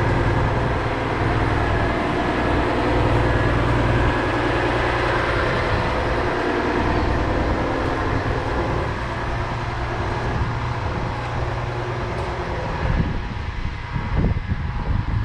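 An engine running steadily: a low, even drone with a haze of noise over it. A few louder knocks come near the end.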